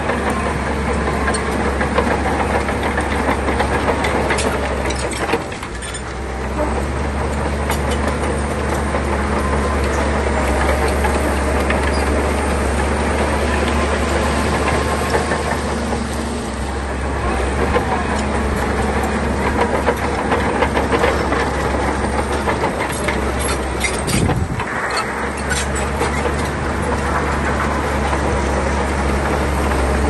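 Shantui crawler bulldozer's diesel engine running steadily under load, with clanking steel tracks and scattered knocks of stone. The engine drops briefly about five seconds in and again near 24 seconds.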